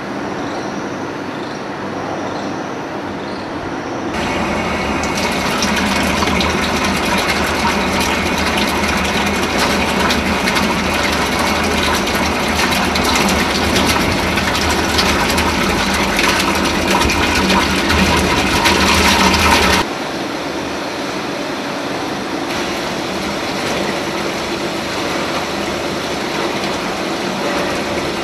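Steady running noise of oil-pressing and refining machinery. From about four seconds in, a louder rushing of tea seed oil pouring in a stream from a pipe, which cuts off suddenly about twenty seconds in.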